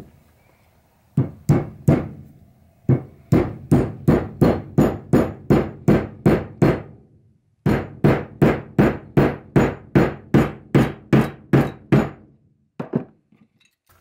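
Small ball peen hammer, about 8 ounces, tapping a wooden wedge into the slot of a hickory handle in a ball peen hammer's eye: a long run of sharp, even blows, about three a second, with a short pause near the middle. The wedge is being driven in to spread the handle and lock the head on.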